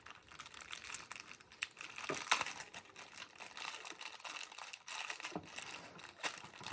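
Packaging crinkling and rustling as small toy pieces are handled and unwrapped, with scattered clicks and one sharper click a little after two seconds in.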